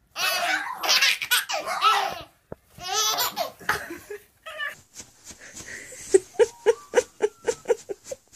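A baby laughing hard in high, shaking belly laughs for about two seconds, then again briefly a second later. After that comes a softer run of short, evenly spaced sounds, about three a second.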